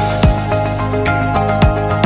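Background music with held chords over a beat of low thuds and light ticks.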